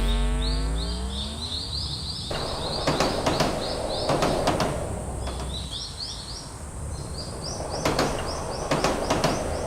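Cartoon sound effects: a sweep of gliding tones at the start, a rapid run of short high chirps, and two stretches of rushing noise cut with sharp clicks.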